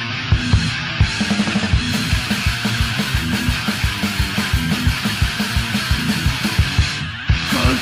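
Heavy rock music with distorted guitar over a fast, even kick-drum beat, with a short break near the end before it comes back in.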